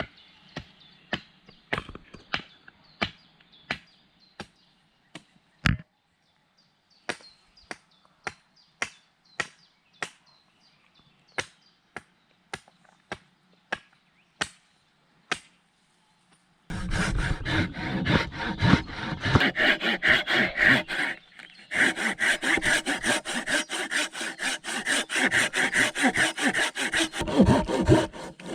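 Sharp, evenly spaced knocks on wood, about one every half second with a louder one about six seconds in. Then, just over halfway through, a saw starts cutting wood in rapid, continuous strokes, pausing briefly about three quarters of the way in before carrying on.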